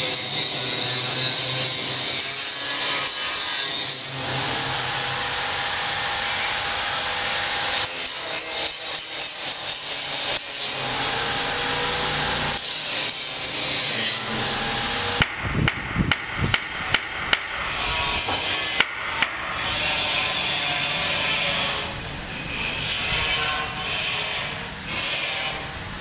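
Compressed-air spray gun hissing in long bursts as paint is sprayed, with a motor whine rising and then levelling off twice. About fifteen seconds in this gives way to a hand saw cutting timber in uneven strokes, a few a second.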